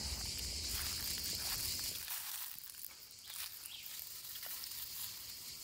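Steady high-pitched insect drone in dry woodland, with a few scattered crunches of dry leaves and twigs underfoot. A low rumble under it drops away about two seconds in.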